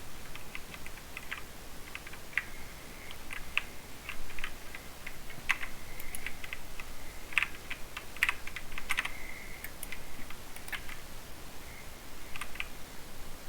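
Typing on a mechanical keyboard with Cherry MX Silver linear switches: irregular keystrokes in uneven runs with short pauses.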